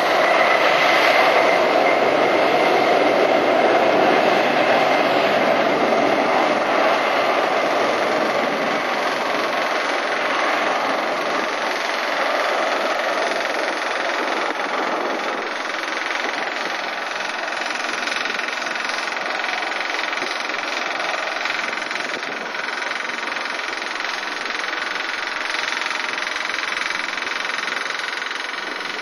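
Twin jet engines of a Boeing 767-300ER running at power as the airliner taxis out and then rolls away down the runway. It is a continuous loud rumble with a faint steady whine, loudest in the first few seconds and slowly fading as the aircraft draws away.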